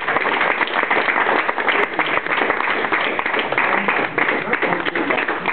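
Audience applauding, many hands clapping steadily, as a winning auction bid is closed.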